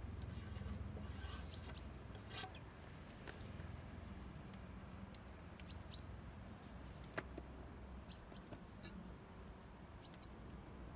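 Small songbirds calling: short, high chirps, mostly in quick pairs, recurring every few seconds, over a low steady rumble.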